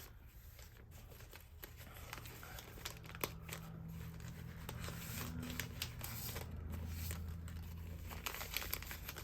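Paper packaging crinkling and rustling as it is handled and unwrapped by hand, with irregular small crackles and one sharper click about three seconds in.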